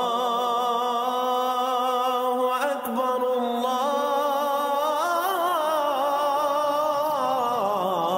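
Intro music: a single voice chanting long held notes, with a wavering ornamented passage about halfway through.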